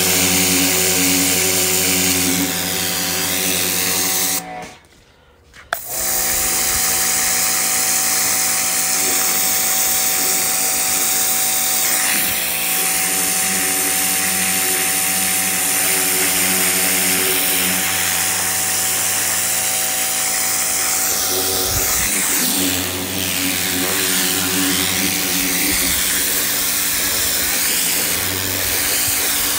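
A Hart 2000 PSI electric pressure washer running: a steady motor hum under the hiss of the water jet hitting the carpet. About four and a half seconds in, the spray and motor stop for about a second, as when the trigger is released, then start again and run on.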